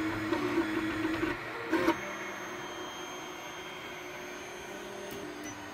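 Anycubic i3 Mega 3D printer printing: its motors whine at a shifting pitch over a steady hum. A brief knock sounds just under two seconds in, and the printer then runs on with a quieter, steadier hum.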